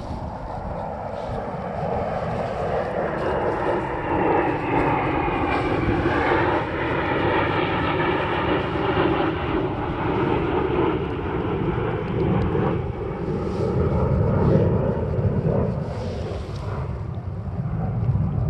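An aircraft flying overhead: a steady engine drone for the whole stretch, its pitch slowly sinking and then climbing again as it passes.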